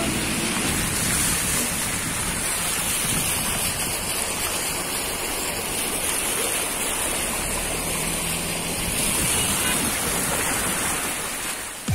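Floodwater rushing over a road, a steady broad rushing noise of fast-moving water.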